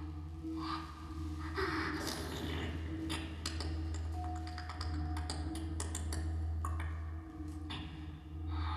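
Sparse performance music: a steady low drone with held tones, and a run of quick light taps and clicks through the middle.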